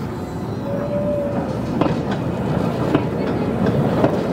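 Train of open passenger wagons approaching, its wheels clicking over rail joints about once a second and growing louder.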